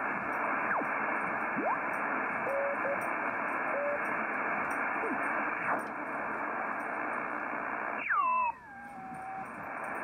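Receiver audio from a Yaesu FTdx3000 HF transceiver in lower sideband while the 40-meter band is tuned: a steady hiss of band noise with brief whistling tones sliding in pitch as signals pass through. About eight seconds in, a stronger signal sweeps down in pitch and the hiss drops away for a moment. The band is quiet and nearly empty, described as "pretty dead" during solar minimum.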